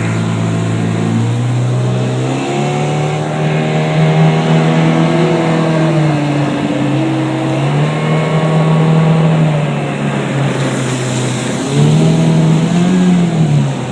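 A motor engine running with a steady drone, its pitch stepping up and dropping back several times as the throttle changes.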